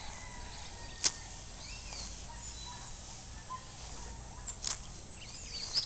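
Outdoor ambience: faint high bird chirps over a steady low rumble, with a sharp click about a second in and two more near the end.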